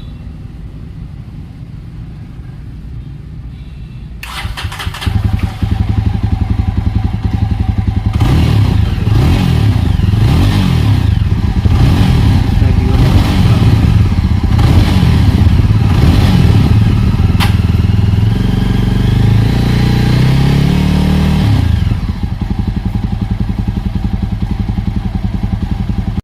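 Jawa 42 Bobber's single-cylinder engine starting about four seconds in, after a low steady hum. The throttle is then blipped over and over, the pitch rising and falling, before it drops back to a steady idle near the end.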